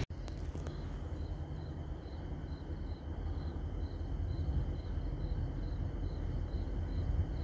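A cricket chirping in an even rhythm, about two to three chirps a second, over a steady low rumble from a freight train's tank cars rolling away.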